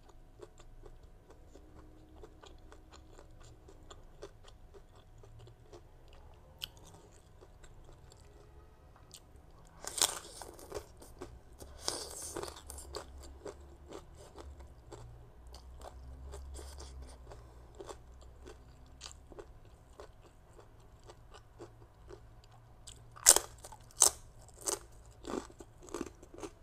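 Close-up chewing and crunching of shredded green mango and shrimp salad on crisp sesame rice cracker (bánh đa). Mostly soft chewing, with loud crisp crunches about ten to thirteen seconds in and a run of sharp crunches, about two a second, near the end.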